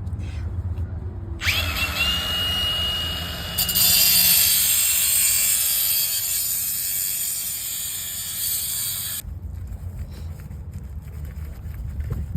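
A power tool starts abruptly with a high whine, runs with a loud rasping noise that grows louder partway through, and stops suddenly after about eight seconds.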